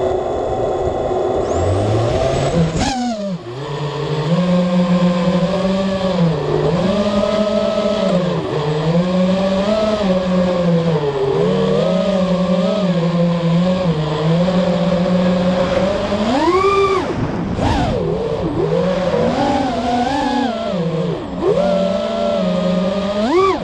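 Small drone's electric motors and propellers, heard from its onboard camera: a low hum while it sits on the ground, then a sharp rise in pitch as it takes off about two and a half seconds in. After that a steady whine that rises and falls with the throttle, with two quick upward surges late on.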